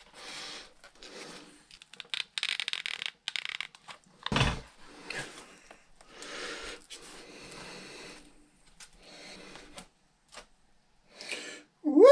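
Hands working a foam RC plane fuselage, with rustling, rubbing and scraping of the foam pieces as they are fitted and pressed together. A crackly stretch comes about two to three seconds in, then a single thump a little after four seconds, and a short rising squeak at the very end.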